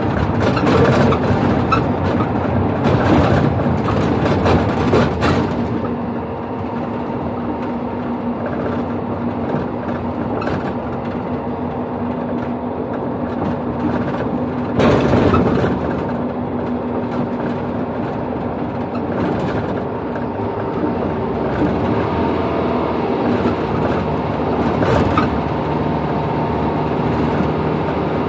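Cab of a Dual Mode Vehicle, a Toyota Coaster-based minibus, running in road (bus) mode: steady engine and tyre noise. The sound is louder and hissier for the first five seconds or so, inside a road tunnel, then settles lower on the open road, with a brief surge about fifteen seconds in.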